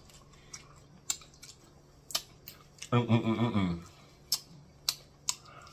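Scattered sharp clicks and smacks of a person eating crispy fried catfish nuggets, with a short hummed voice sound about three seconds in.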